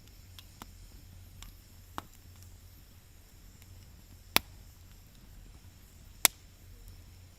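Wood fire crackling: sparse faint pops, with two sharp, loud snaps about four and six seconds in.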